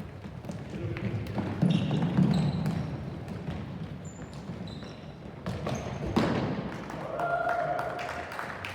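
Sounds of play in a youth soccer match: ball thumps and knocks, short high squeaks and a distant shout.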